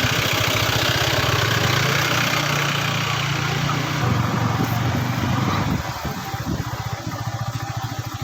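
Vehicle engine running with an even, fast pulse, under a rush of wind on the microphone; it all gets quieter about six seconds in.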